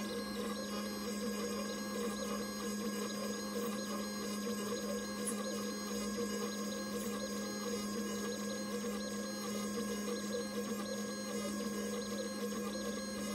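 PocketNC V2 desktop five-axis CNC mill cutting a blue workpiece: the spindle and end mill run steadily under load, with a constant hum and several steady high tones, and a faint high sound that switches on and off in an even pattern as the axes move.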